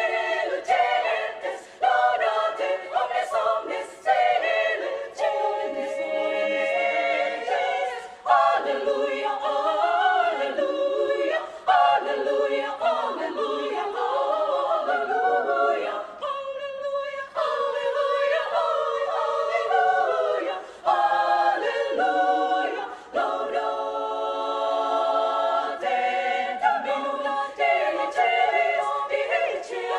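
Women's choir singing a cappella, several voice parts together in phrases separated by short breaks.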